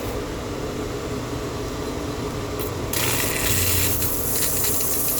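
Pool pump motor running with a steady hum; the owner says the pump is sucking air through a leak in its copper plumbing. About three seconds in, a rushing water sound starts suddenly and continues.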